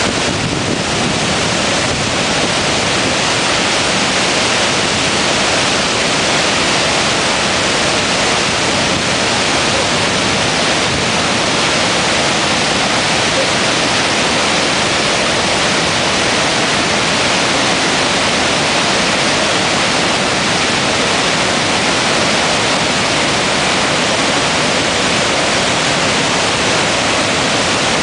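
Steady, loud rush of the Gullfoss waterfall on the Hvítá river, a large volume of water pouring down without a break.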